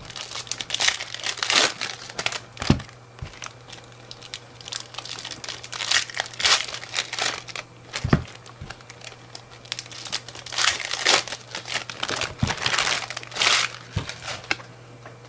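Plastic trading-card pack wrappers crinkling and tearing as packs are opened and handled, with a few sharp taps of cards or packs set down.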